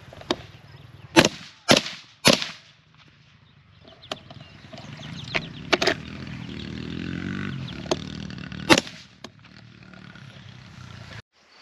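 Several sharp cracks: three close together about a second in, two more around the middle and one later on, over a steady low rumble that cuts off abruptly near the end.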